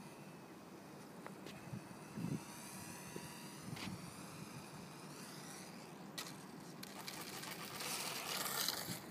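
Brushed electric motor and propeller of a small RC plane (a HobbyZone mini Super Cub converted to a biplane) whining in flight, its pitch wavering up and down with throttle and distance. Soft footsteps and handling bumps sound underneath, and a louder rushing noise builds near the end as the plane comes in close.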